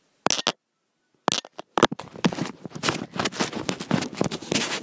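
Handling noise from a handheld camera or phone: a few sharp knocks, then a dense crackling rustle as it is moved and rubbed close to the microphone.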